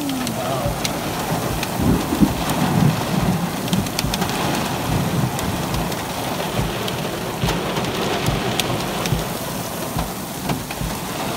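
Heavy rain mixed with small hail pelting a moving car, heard from inside the cabin: a steady rush with scattered sharp ticks of strikes, and a louder low rumble about two seconds in.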